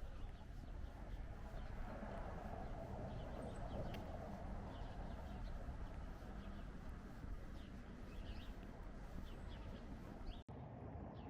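Outdoor ambience: a steady background hiss with small birds chirping repeatedly. The sound cuts out abruptly for an instant near the end.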